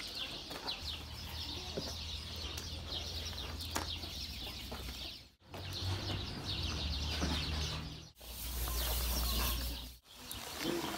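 Many birds chirping, over a steady low rumble; the sound breaks off abruptly three times.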